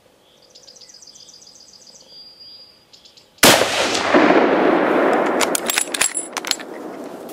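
.30-06 hunting rifle fired once, a sudden loud crack about three and a half seconds in, followed by several seconds of rolling echo that slowly dies away. A string of sharp clicks comes through the tail of the echo.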